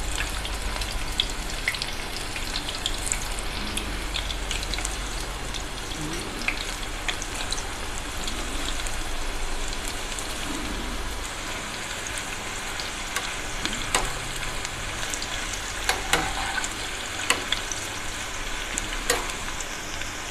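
Thin raw banana slices deep-frying in a pan of hot oil: a steady sizzle with scattered small crackles, and a few sharper clicks in the second half.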